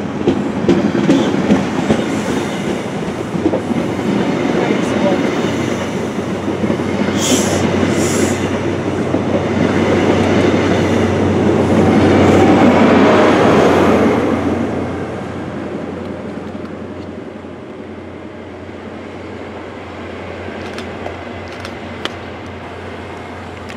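High Speed Train (InterCity 125) passing through at speed: a continuous rush and rumble of the Mk3 coaches on the rails, loudest about twelve to fourteen seconds in as the rear diesel power car goes by, then fading steadily as it draws away.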